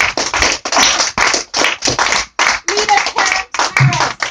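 Audience applauding: a fast, dense run of hand claps.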